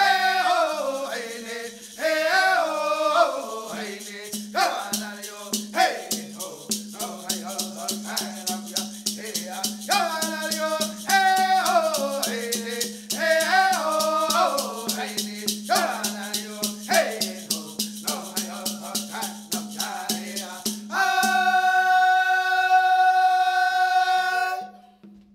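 Voices singing the Women's Dance song over a fast, steady shaken-rattle beat, ending on a long held note that stops shortly before the end.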